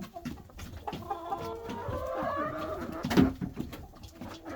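Domestic hens clucking with drawn-out, wavering calls, and a single sharp knock about three seconds in.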